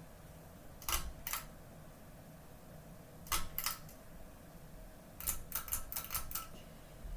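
Sharp mechanical clicks in irregular groups: a pair about a second in, another pair past three seconds, then a quick run of about six, over a faint steady low hum.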